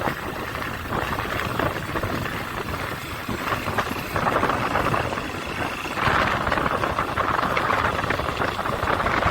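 Honda Shine motorcycle's single-cylinder engine running steadily while riding along a road.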